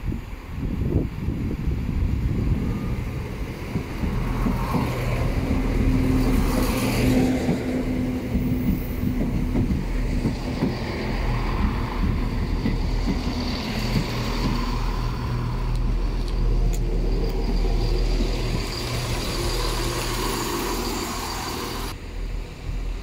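Class 168 diesel multiple unit running into the platform and drawing to a stop, its diesel engines running with a steady hum and its wheels rumbling over the rails.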